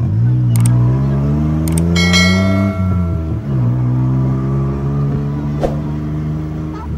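Tuk-tuk engine pulling away, heard from inside the open cabin: its note rises for nearly three seconds, drops at a gear change, then climbs again and holds steady. A few sharp clicks and a short bright bell-like ding come about two seconds in.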